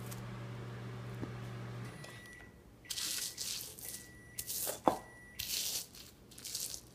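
A steady low hum that stops about two seconds in, then four short bursts of gritty scraping as chopped onion and cilantro are worked against the rough stone of a molcajete, with one sharp click in the middle.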